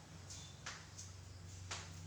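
Two short sharp clicks about a second apart, over a faint steady low hum.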